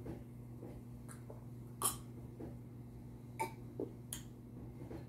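A man drinking water from a glass: a few short gulps and throat sounds, the loudest about two seconds in, with a steady low hum underneath.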